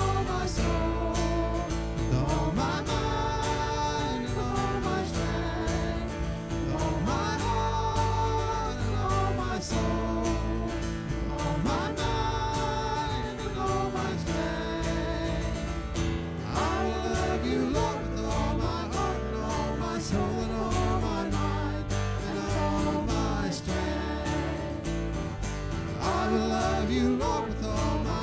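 Recorded worship song playing, with guitar prominent.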